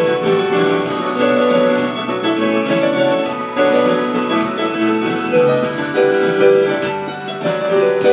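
Digital piano played with both hands: a flowing melody of notes in quick succession over sustained chords.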